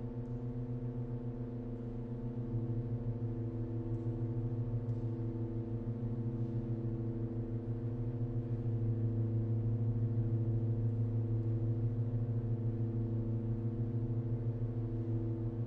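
Pipe organ holding a sustained low cluster of several notes, wavering fast and evenly where close pitches beat against each other. The lowest tones swell louder about two and a half seconds in and again around eight seconds.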